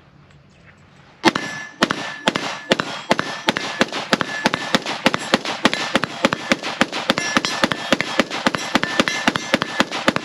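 Springfield Armory Hellion 5.56 bullpup rifle fired rapidly in semi-automatic, about four shots a second, starting about a second in and running through a magazine. A steady metallic ringing tone hangs between the shots.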